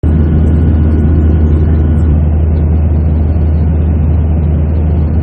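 Loud, steady low rumble of a vehicle on the move, starting suddenly.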